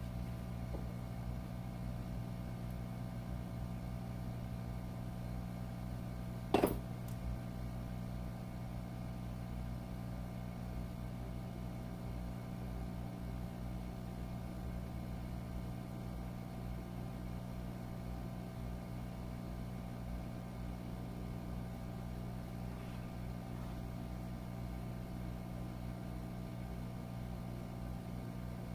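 Steady low hum of running repair-bench equipment, holding a few fixed tones, with one sharp click about six and a half seconds in.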